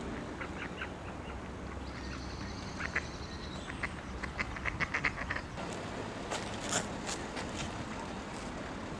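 Mallard ducks quacking: a few short quacks about half a second in, then a quick run of quacks between about three and five seconds, and a few more near seven seconds.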